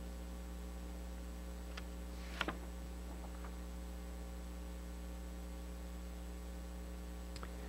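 Steady electrical mains hum: a low, even buzz carried in the sound feed, with a couple of faint small clicks about two seconds in.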